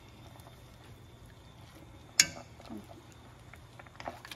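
Wire potato masher pressed into boiled potatoes and milk in an enamelled cast-iron pot: a sharp metal clink against the pot about two seconds in, followed by a wet squelch, and softer knocks near the end.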